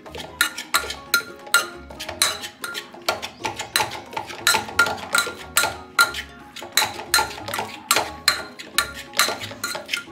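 Large steel spoon mashing cooked rice in a non-stick pan: a steady run of metallic clinks and scrapes against the pan, about three a second.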